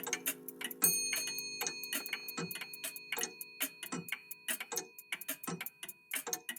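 A vintage cuckoo clock and another old clock ticking out of step, giving an uneven run of several ticks a second. About a second in, a small high-pitched bell or chime is struck once and rings on for several seconds as it fades.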